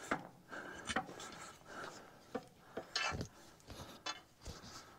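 Pry bar scraping and digging packed dirt out from around hoses in a backhoe's front end, in irregular short scrapes and knocks. There is a longer scrape about three seconds in.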